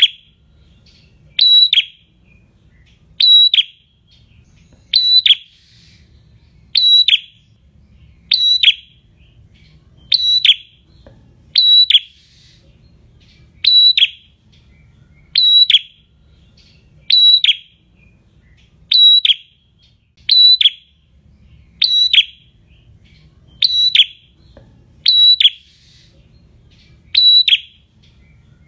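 Caged prenjak singing, repeating one short, loud, high-pitched call about every second and a half to two seconds, each call sharp at the start and falling away at the end.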